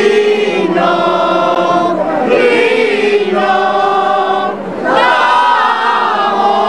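A group of men and women singing a religious song together, led by a man singing into a handheld microphone. The sung phrases break off briefly about four and a half seconds in, then go on.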